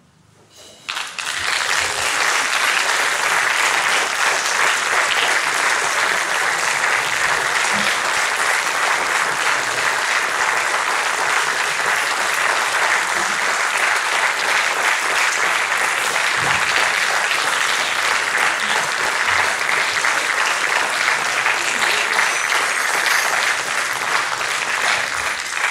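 Audience applauding, starting about a second in and holding steady before easing off near the end.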